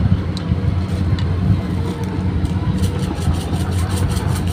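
A steady low drone, with light clinks of a spoon against a metal cooking pot in the last second or so.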